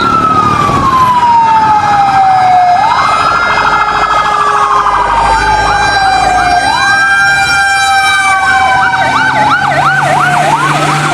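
Fire engine siren wailing, three slow rise-and-fall sweeps, with a fast warbling yelp joining in near the end.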